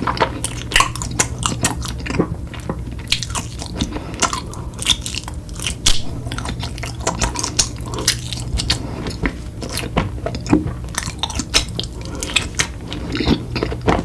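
Close-miked eating sounds: a person biting and chewing crunchy sweet food, with many sharp crunches in quick, irregular succession.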